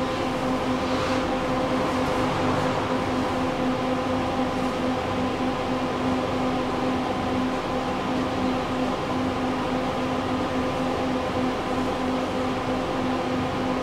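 Tram running, heard from on board: a steady electrical hum with a held tone over the even rumble of the ride.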